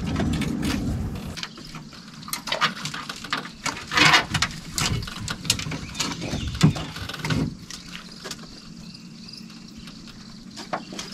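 Rapid clicks and knocks of fishing tackle as a fish is reeled in to the boat, with a short, louder noisy burst about four seconds in. A low rumble in the first second and a half dies away, and the last few seconds are quieter.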